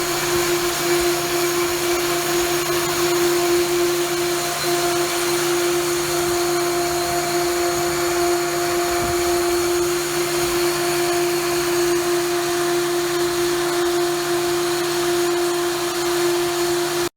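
Pneumatic grain-conveying blower running steadily, a constant hum with a rush of air, as dried corn is blown through the tube to the bins.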